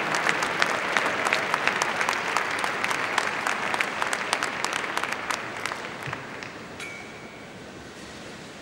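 Large arena audience applauding, many separate hand claps, dying away gradually until only a low background hum of the hall is left.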